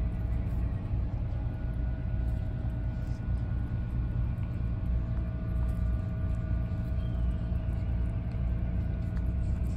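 Steady low rumble with a faint, even hum over it, unchanging throughout.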